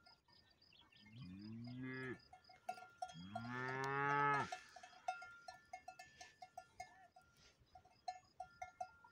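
A cow mooing twice, a shorter moo about a second in and a longer, louder one about three seconds in, each rising in pitch. Cowbells clank irregularly throughout as the cattle graze, more busily after the second moo.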